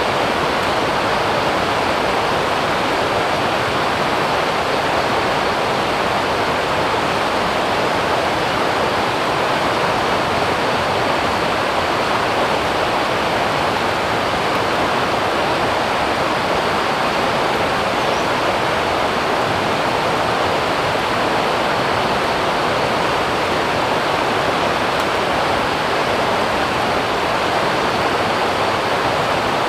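Forest stream rushing steadily, a continuous wash of flowing water.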